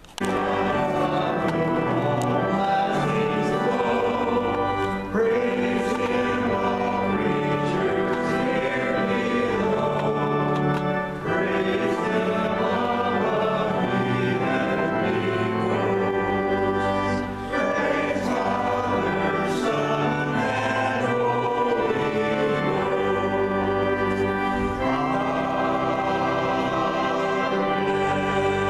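Church choir singing a sustained, slow-moving offertory anthem.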